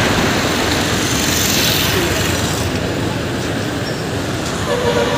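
Steady road traffic noise from a busy city street.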